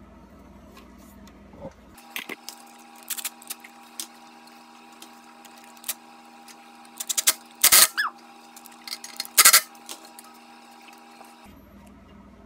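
Scattered clicks and clinks of a metal hose clamp being fitted and tightened on a silicone intercooler coupler, with two louder sharp clacks in the second half. A faint steady hum runs underneath.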